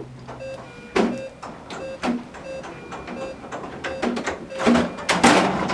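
Patient monitor beeping steadily at about two short pitched beeps a second, pacing the simulated infant's heart rate. Scattered clicks and a rush of air near the end come from a bag-valve-mask being squeezed to ventilate the infant manikin.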